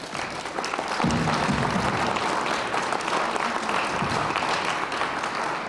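Audience applauding, the clapping swelling about a second in and tapering off near the end.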